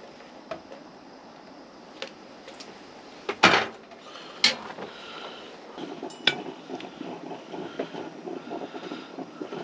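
A metal percolator coffee pot clanking as it is set down on the grate of a Coleman camp stove, with a few lighter clicks and knocks of metal and cookware. A low rushing noise builds up after about five seconds.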